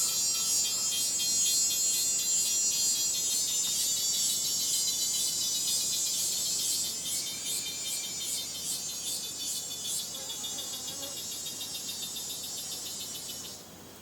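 Dense insect chorus: a shrill high buzz that pulses evenly a few times a second, fading somewhat in the second half and cutting off suddenly near the end.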